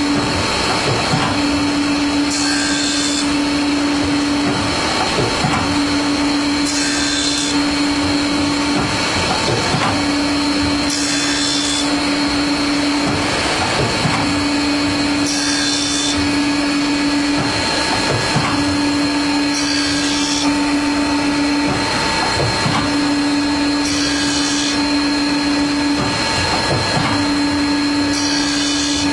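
CNC circular saw blade sharpening machine running its automatic cycle, grinding the blade tooth by tooth. Under a steady machine noise, a hum drops out briefly and a short high hiss comes once each cycle, about every four and a half seconds.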